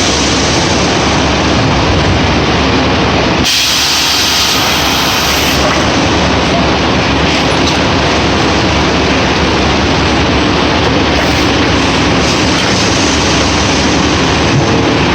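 Pellet packaging machine running, a loud steady mechanical rush and rumble with no clear rhythm. The sound shifts abruptly about three and a half seconds in and again about two seconds later.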